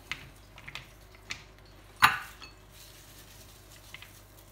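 A few light taps and one sharp knock about two seconds in, as hands work sliced onions through milk in a mixing bowl, knocking against the bowl.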